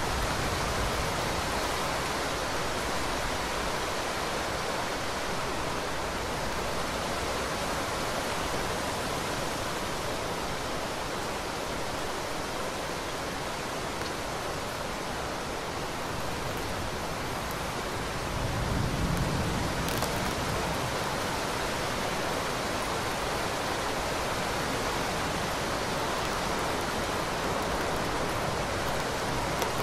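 Heavy rain falling steadily, a dense, even hiss of downpour. About two-thirds of the way in, a short low rumble swells briefly under the rain.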